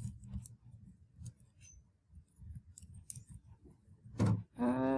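Light irregular clicking of computer keys being typed and tapped. About four seconds in there is a louder knock, followed by a person's voice holding a steady hum.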